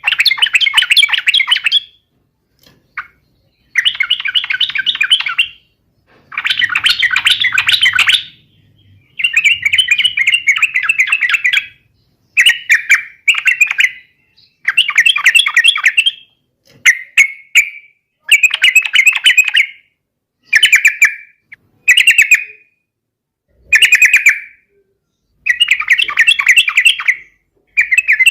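Yellow-vented bulbul (trucukan) singing: a string of rapid chattering phrases, each one to two seconds long, with short pauses between them.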